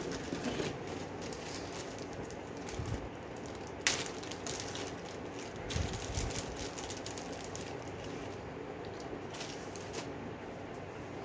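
Hands handling test-kit packaging, paper and small plastic items at a bench: rustling and light clicks, with one sharp click about four seconds in, over a steady background hum.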